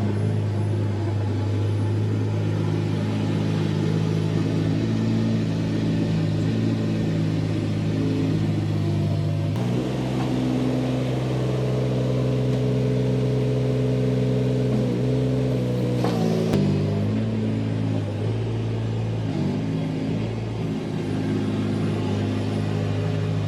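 Kubota KX018 mini excavator's diesel engine running steadily, shifting to a different engine note about ten seconds in and going back about six and a half seconds later.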